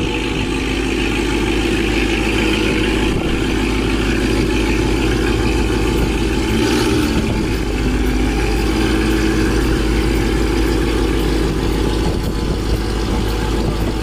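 Dodge Charger Hellcat Widebody's supercharged 6.2-litre V8 idling steadily.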